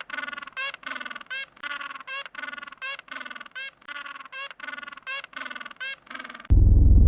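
A duck quacking over and over, short nasal calls about two to three a second. Near the end a much louder low rumble cuts in suddenly.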